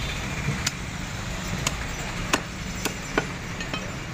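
A butcher's blade knocking on a wooden chopping block while chicken is cut into pieces: about six sharp, separate knocks, roughly half a second apart. A steady low rumble of traffic runs underneath.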